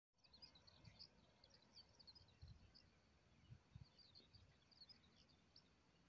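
Faint outdoor birdsong: many short, high chirps from small birds scattered throughout, over a low background hiss, with a few brief low thumps from wind or handling on the microphone.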